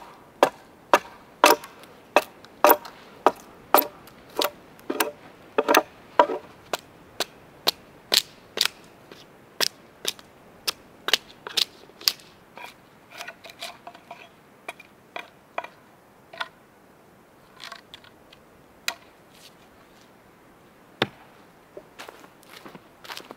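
Axe chopping into a wooden log, about two sharp strikes a second, slowing and getting fainter after about twelve seconds, with a few scattered knocks near the end.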